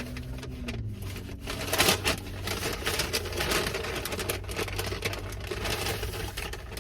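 Takeout bag rustling and crinkling as a hand rummages through it, in irregular crackly bursts over a steady low hum.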